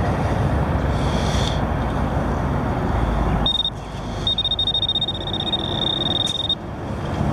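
Metal-detecting pinpointer held in a dug hole, sounding its high, rapidly pulsing alert tone: a short beep about halfway through, then a run of about two seconds, the sign that it is picking up metal in the soil. Under it, a steady rumble of highway traffic.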